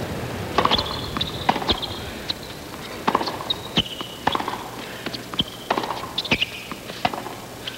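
Tennis rally on a hard court: a serve followed by racket strikes on the ball, a sharp knock about every second, with short high squeaks between the hits.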